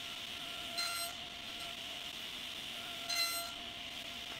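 Table saw running steadily with a constant whine, with two brief sharper rings, about a second in and near the end, as the blade cuts into a panel held on end in a sled.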